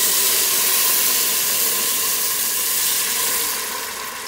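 Blended chile sauce is poured through a mesh strainer into a hot pan of oil and sautéed onion, and it sizzles loudly. The sizzle dies down near the end.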